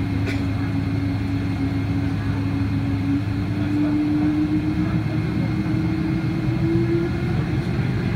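Steady drone inside the cabin of a Boeing 777-200 taxiing on its engines. It carries a low hum and a clear tone that climbs a little in pitch about halfway through and again near the end.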